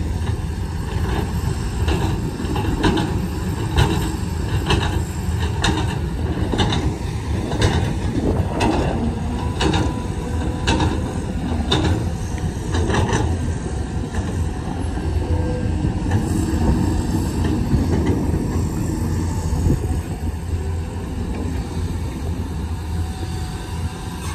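A Cat 323GC excavator's diesel engine runs steadily under load. Over it, for the first half, come sharp knocks about once a second, which then stop.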